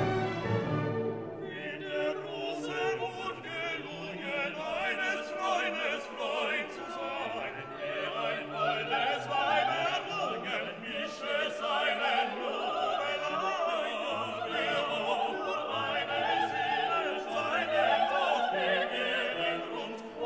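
Background music: an operatic voice singing with orchestral accompaniment, coming in about a second in after a brief instrumental passage.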